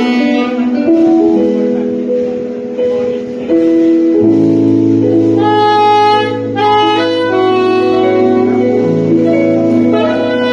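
Live band music in a slow R&B style, an instrumental passage with a saxophone carrying the melody over sustained chords, the bass coming in about four seconds in.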